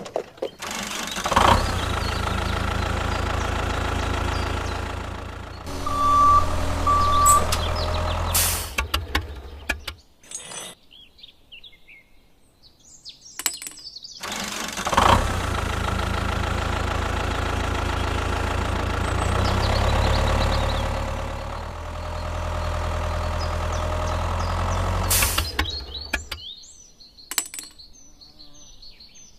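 Vehicle engine running in two long stretches of about eight and ten seconds, each starting suddenly, with two short beeps during the first stretch.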